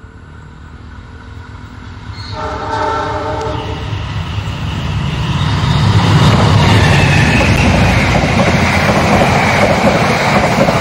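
CC206 diesel-electric locomotive sounds one horn blast of about two seconds, starting about two seconds in. The train then approaches and passes close by: the engine running and the wheels clattering over the rails, loud from about six seconds in as the coaches roll past.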